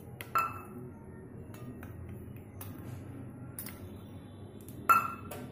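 A metal spoon or container clinking against a ceramic mixing bowl while flour is tipped in: one clink with a short ring near the start and a louder one near the end.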